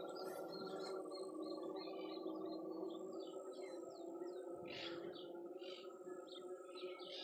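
Small birds chirping in quick short calls, with a steady insect-like trill and drone underneath.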